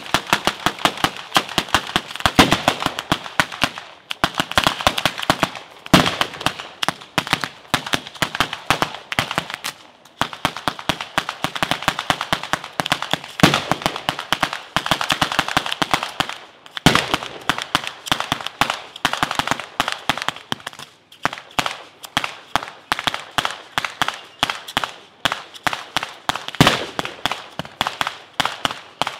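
Batteria alla napoletana: a ground battery of firecrackers strung along a rope line, going off in a rapid, continuous chain of bangs. Louder single reports stand out every few seconds, and the bangs come more separately in the last several seconds.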